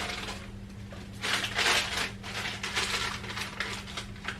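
Rustling and crinkling of plastic packaging being handled in several short swells, over a steady low hum.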